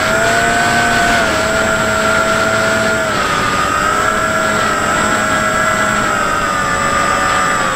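Bixler 3 RC plane's electric motor and pusher propeller whining steadily at cruise, with air rushing over the airframe, heard from a camera mounted on the plane. The pitch eases down slightly a couple of times.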